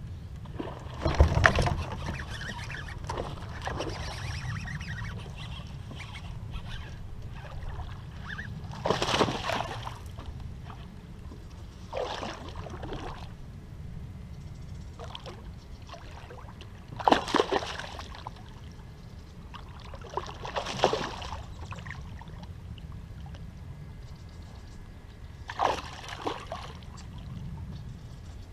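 Short splashes and sloshes in water, six of them spaced a few seconds apart, over a steady low rumble.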